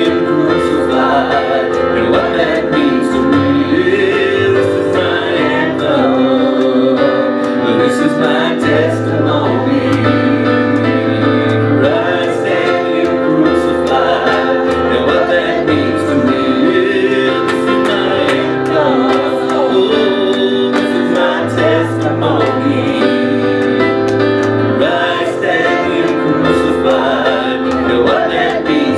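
Gospel worship music: voices singing with vibrato over sustained keyboard accompaniment and a steady bass line.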